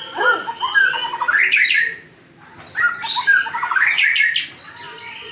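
White-rumped shama (murai batu) singing: two rapid phrases of varied whistled and chattering notes that sweep up and down in pitch, with a brief pause about two seconds in.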